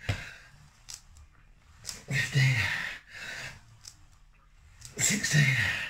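A man's heavy, voiced exhalations with ab-wheel rollouts: two long, strained breaths about three seconds apart, one with each rep. A short sharp click comes at the very start.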